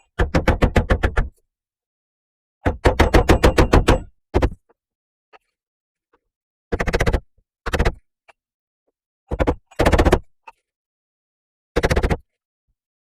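Wooden mallet with a beech and hickory head striking a chisel into wood, in quick runs of blows at about eight a second, broken into about eight short bursts with silences between them.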